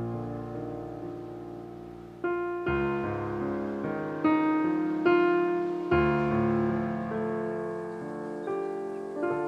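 Background piano music: slow, sustained chords struck every second or two and left to ring and fade.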